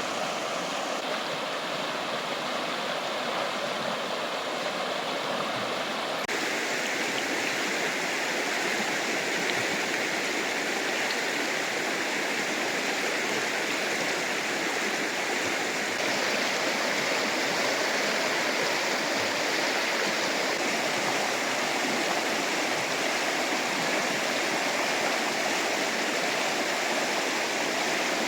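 Fast-flowing river water rushing steadily. The rush changes abruptly about six seconds in and turns slightly louder about halfway through.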